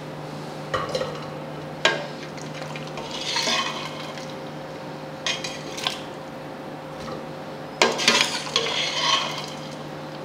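A steel ladle clinking against stainless-steel pots as boiled mutton pieces are lifted out of the broth and dropped into an empty pot, with splashing and dripping broth. A few separate clinks, and two longer spells of splashing about three and eight seconds in, over a steady low hum.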